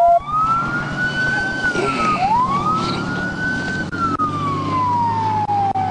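Police car siren on a slow wail, its pitch rising and falling twice.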